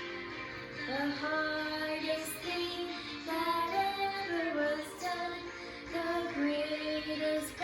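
A woman and children singing a slow, gentle song together over musical accompaniment, the notes held and sliding smoothly from one to the next.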